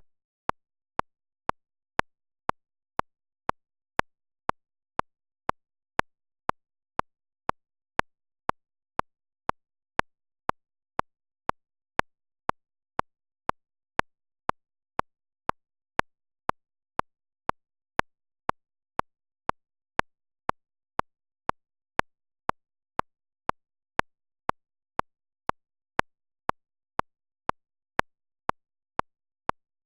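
Steady ticking sound effect: single sharp clicks at an even two a second, with silence between them.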